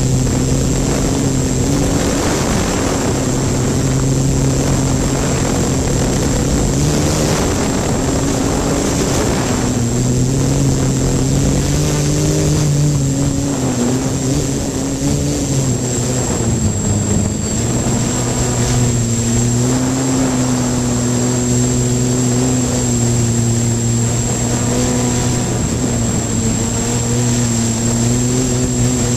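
3DR hexacopter's six electric motors and propellers running in flight, heard close up. The drone's pitch wavers and steps up and down as the motor speeds change, with a steady high whine above it.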